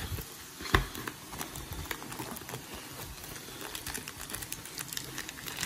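Foil booster-pack wrapper crinkling and rustling as it is handled, with one sharp knock about three-quarters of a second in.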